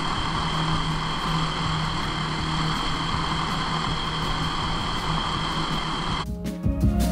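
Snowmobile engine of a four-stroke Ski-Doo 600 running steadily at cruising speed, with a steady high whine over the running noise. About six seconds in it cuts off abruptly and music with a beat takes over.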